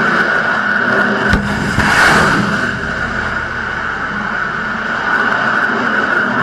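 Warship missile launch: a loud, steady rushing roar of rocket exhaust, with a sharp crack about a second and a half in and a louder surge of roar around two seconds.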